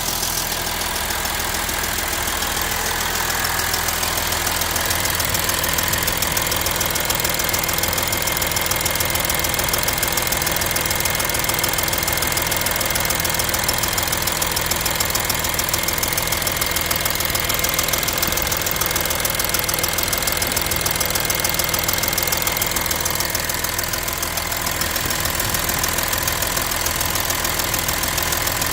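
Audi A6 3.0 TDI V6 diesel engine running steadily with a loud, rapid metallic ticking from the passenger side of the engine, a noise whose cause has not yet been found.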